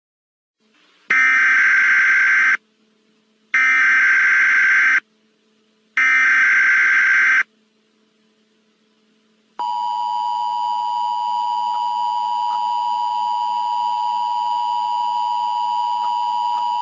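Emergency Alert System SAME header: three loud bursts of screechy digital data tones, each about a second and a half long. About nine and a half seconds in, the steady two-tone EAS attention signal starts and holds.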